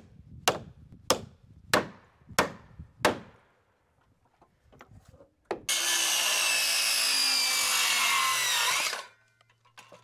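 Five hammer blows on wood, about two-thirds of a second apart. A few seconds later a power saw cuts through a wooden board for about three seconds, the loudest sound here, then stops.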